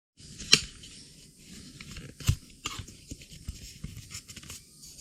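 Handling noise from a graphics card being taken apart by hand: scattered small clicks, taps and rustling. A sharp click comes about half a second in and a duller knock a little after two seconds.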